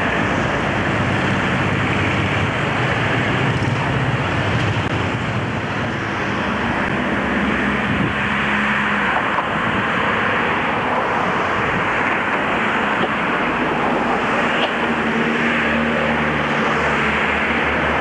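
A vehicle running steadily: a low engine hum under an even rushing noise.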